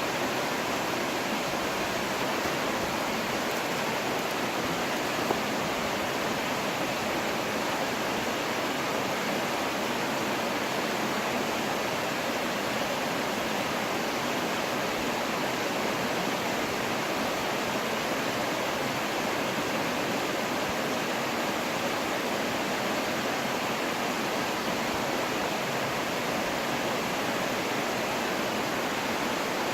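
Rincon waterfall pouring, a steady, even rush of water, with one brief knock about five seconds in.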